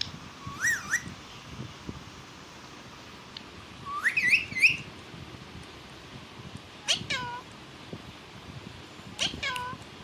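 Indian ringneck parakeet giving short whistled calls in four bursts: a quick rise and fall about half a second in, three rising notes about four seconds in, and falling notes about seven and nine seconds in.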